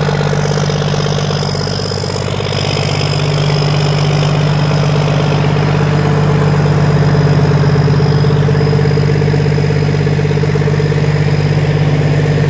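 Cummins N14 inline-six diesel engine running steadily, driving two Gorman-Rupp 10-inch dewatering pumps.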